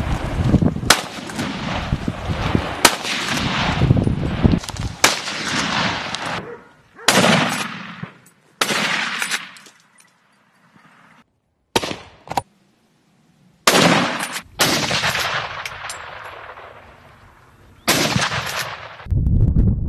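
A string of about ten gunshots, each a sharp crack followed by a fading echo, some close together. The sound cuts off abruptly several times between shots.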